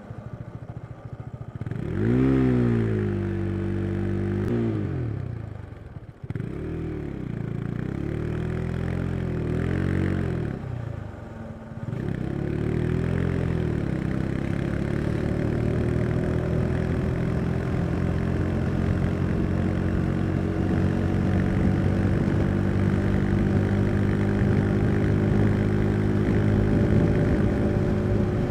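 Husqvarna Svartpilen 401's single-cylinder engine pulling away under acceleration. The revs climb and fall back with gear changes about six and twelve seconds in, then the engine settles into a steady run whose pitch slowly rises.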